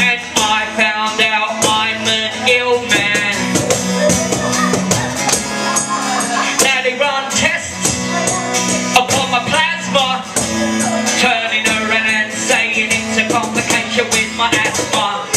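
Live acoustic band music: a guitar and a cajón beaten by hand keep a steady beat, with a man's voice singing into a microphone over them.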